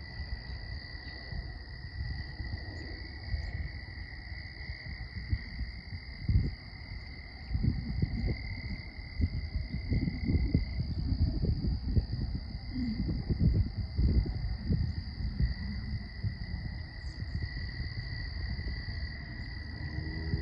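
Steady dawn chorus of crickets and frogs: two unbroken high-pitched calling tones. Gusty wind buffets the microphone underneath, strongest from about six seconds in until about sixteen seconds.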